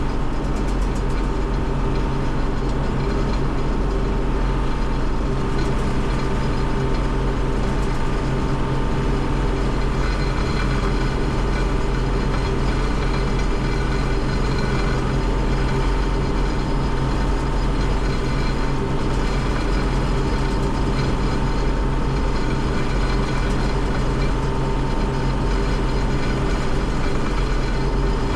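Combine harvester running steadily while harvesting corn: a constant engine and threshing drone with several steady whining tones.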